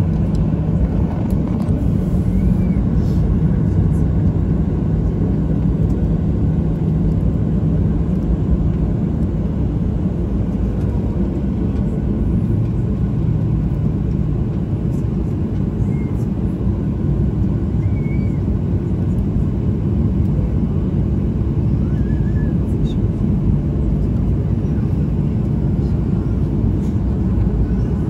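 Cabin noise inside a Boeing 737-8 with its CFM LEAP-1B jet engines running: a steady low rumble with a faint steady hum, and no change in power.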